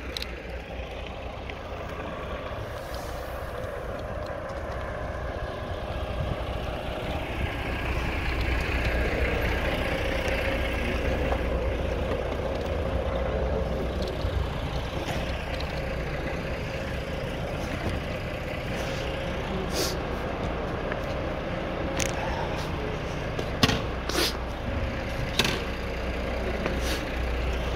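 Traffic with a heavy vehicle's engine running: a steady low rumble that grows louder about a third of the way in, with a held engine tone through the middle. Several sharp knocks come near the end.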